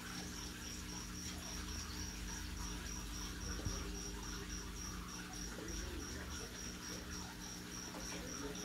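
A cricket chirping steadily, a high tone in quick, evenly spaced pulses, faint over a low electrical hum.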